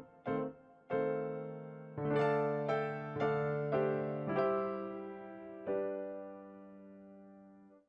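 Background music on a piano-like keyboard: a run of struck chords that ends on one long chord, fading away until it is cut off.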